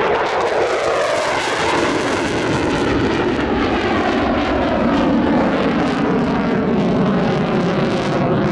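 Eurofighter Typhoon FGR4's twin turbofan jet engines, loud and continuous, with a sweeping, swirling tone running through the noise as the jet passes and pulls up into a climb. The low rumble grows heavier from about four seconds in.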